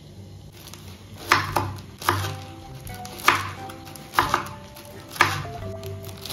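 Kitchen knife chopping through fried breaded pieces onto a wooden cutting board, a sharp knock about every second, over soft background music.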